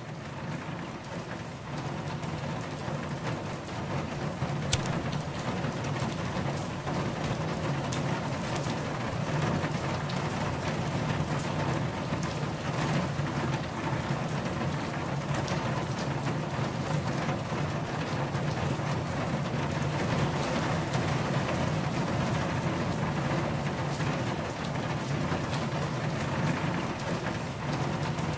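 Rain falling steadily on a car, its drops making a dense haze of fine ticks over a low steady rumble. It fades in over the first couple of seconds, and there is one sharp click about five seconds in.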